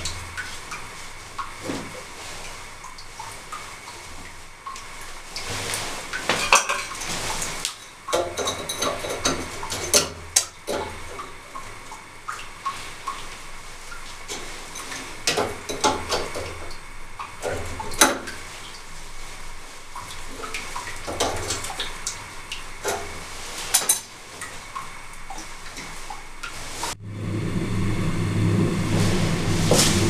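Irregular metal clinks and scrapes of an adjustable wrench turning a new well-pump pressure switch onto its threaded pipe fitting. The sound cuts off about three seconds before the end and a steady low hum takes over.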